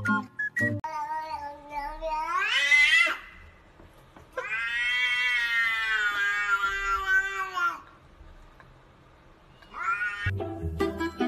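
Cat yowling in long, drawn-out meows: a two-second call that climbs in pitch at its end, then after a pause a longer held yowl of about three seconds, and a short rising meow near the end.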